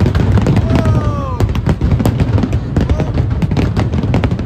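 Harbour fireworks display bursting in quick succession: a dense run of sharp cracks and bangs over heavy low booms.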